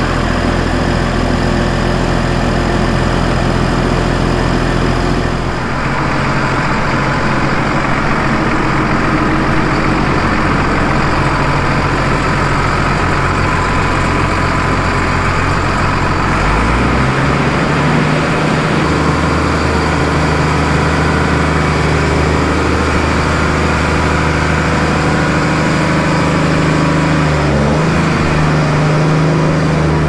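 Case IH MX240 tractor's six-cylinder diesel engine idling steadily. Its engine speed steps up about halfway through and then holds at the higher pitch.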